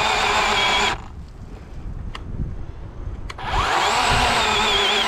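Worx WG384.9 cordless electric chainsaw cutting into a pine trunk with a steady motor whine. The motor stops about a second in, then winds up again with a rising pitch partway through and runs on.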